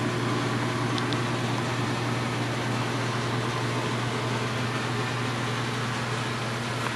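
A steady machine hum with a constant low drone, with two faint light clicks about a second in.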